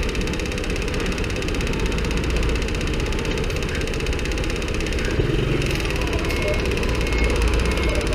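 Honda Cub's single-cylinder engine running steadily with an abnormal mechanical noise, which the owner thinks calls for a check of the cam chain.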